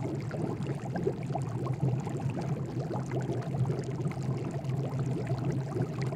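Bubbling, pouring water sound, a dense patter of droplets, with a low steady hum beneath it.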